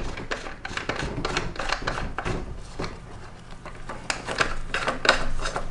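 Hands handling a small plastic waterproof battery-pack case and its power cable: an irregular run of light clicks and rubbing.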